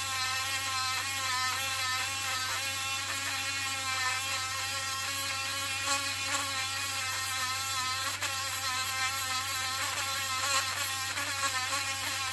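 Dremel rotary tool with a sanding drum running at speed, sanding a small steel axe head cut from a railroad spike. It gives a steady whine with many overtones that wavers a little in pitch as the drum is pressed against the metal.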